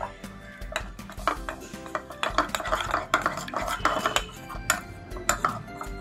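A spoon stirring cornflour and water into a paste in a small bowl, with rapid clinking and scraping against the bowl that grows louder about two seconds in. Background music plays underneath.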